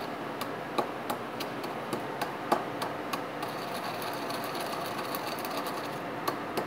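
Wooden pestle pounding toasted cumin and coriander seeds in a wooden mortar: repeated knocks, about three a second.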